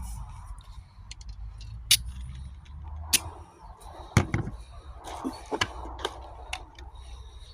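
Beretta-style airsoft pistol clicking and clacking: about six sharp mechanical clicks at uneven intervals, with lighter ticks in between.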